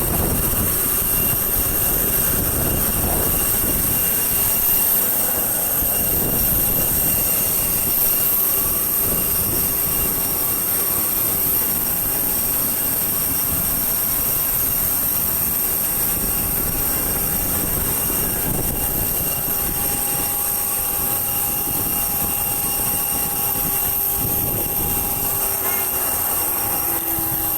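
Jet airliner engines running with a steady rushing noise and a high, constant whine; a further tone joins partway through and a lower one falls in pitch near the end.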